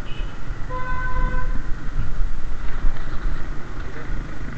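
A vehicle horn toots once, briefly, about a second in, over a steady rumble of street traffic.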